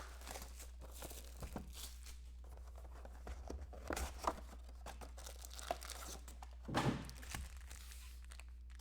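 Wrapping and packaging being torn and crinkled as a box of trading cards is opened: scattered faint rustles and crackles, with a louder rustle about seven seconds in, over a steady low hum.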